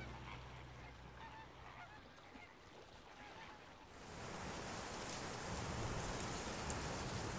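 Faint honking calls of a flock of greater flamingos in flight. About four seconds in, a steady rush of wind through grass over sand takes over.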